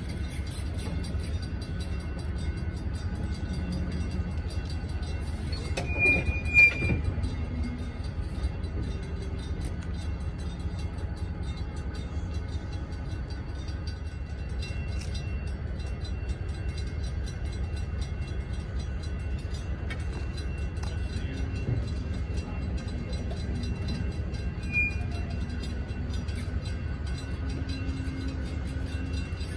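Pere Marquette 1225's excursion train rolling along the track with a steady low rumble. Two short, high wheel squeals come about six seconds in, and another comes later on.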